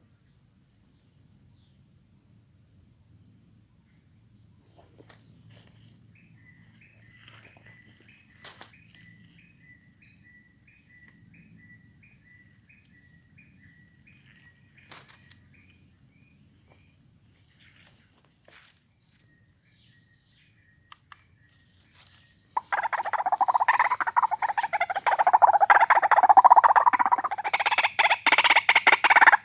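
A steady high insect drone with pulsing cricket chirps and a faint run of repeated chirping notes. About three-quarters of the way in, loud, harsh, croaking calls of white-breasted waterhens (ruak-ruak) break in suddenly and go on in choppy runs.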